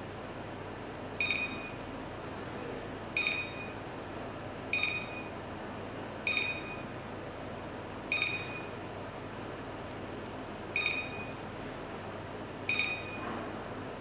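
Seven short, high electronic beeps, spaced unevenly about one and a half to two and a half seconds apart, over a steady faint hiss. They are the ILIFE A6 robot vacuum's beeps acknowledging button presses on its remote control while a cleaning schedule is set.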